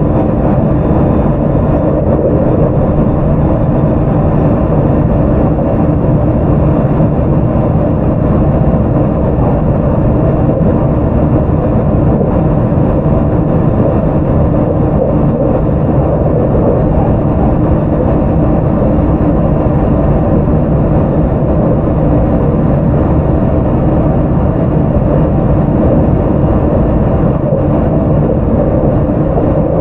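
Inside a JR 681-series electric train (motor car KuMoHa 681-507, Toshiba GTO-VVVF), the steady running noise of the train at speed, wheels on rail and motor, mostly low in pitch and unchanging.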